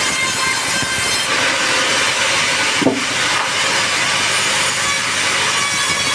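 Sawmill saw cutting through a teak log, a steady grinding rush with a high steady whine. About three seconds in there is one sharp knock.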